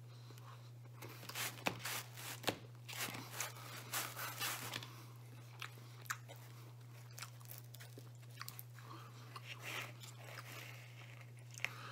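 Close-up chewing and biting on a slice of pizza: irregular crunches of the crust, most of them in the first half, over a steady low electrical hum.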